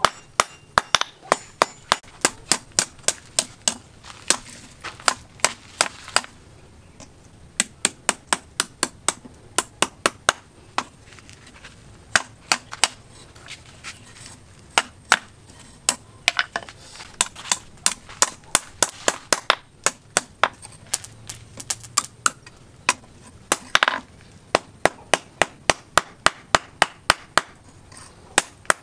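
Hand hammer striking red-hot steel on a small steel post anvil as the prongs of a multi-hook fishing tool are forged: a run of sharp metallic blows, about two to three a second, broken by a few short pauses.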